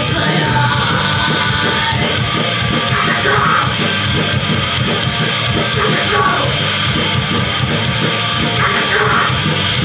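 Punk band playing live and loud: distorted electric guitar driving a fast, steady rock song.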